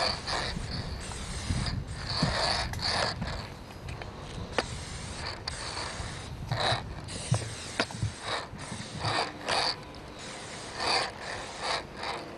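Aerosol spray-paint can hissing in a string of short, irregular bursts, with a few sharp clicks between them.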